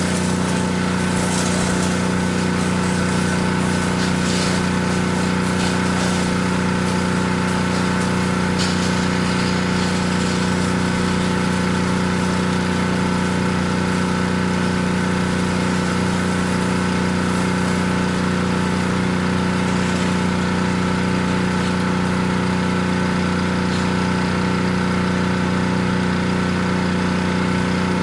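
Gas engine of a pressure washer running at a constant speed, with the hiss of the water spray over it.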